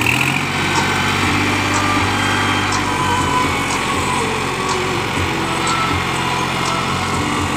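New Holland 5510 tractor's diesel engine running steadily under way, with faint knocks now and then.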